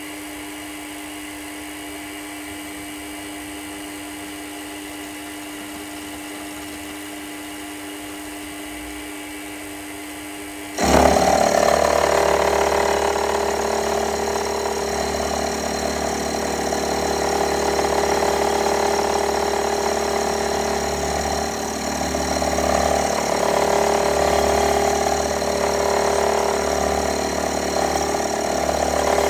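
A metalworking machine tool running with a steady whine. About eleven seconds in it suddenly gets much louder, with several steady gear-like whining tones over a low hum that carry on to the end.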